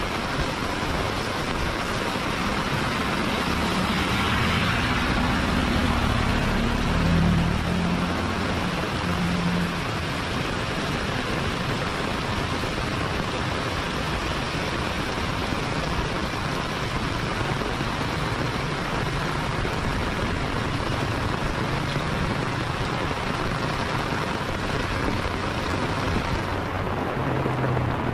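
Heavy rain falling steadily on a paved road and the vegetation around it, a continuous hiss. A car drives past a few seconds in; its engine hum swells and fades around the seventh second.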